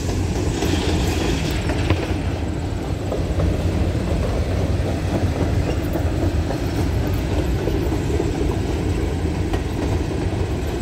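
Norfolk Southern coal train's hopper cars rolling steadily past, a continuous noise of steel wheels running on the rails.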